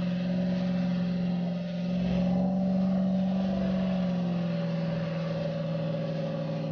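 Steady motor drone from the recovery vehicle pulling on a tow line, holding one pitch with a slight fall.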